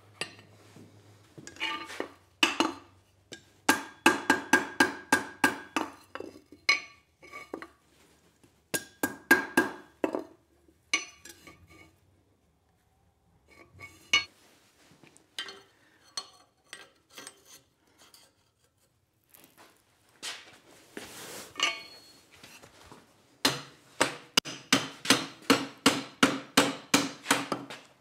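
Blacksmith's hammer striking hot steel on an anvil and a vise, in quick runs of ringing blows with pauses and sparser knocks between. A short rush of noise about three-quarters of the way through, then a fast, steady run of blows near the end.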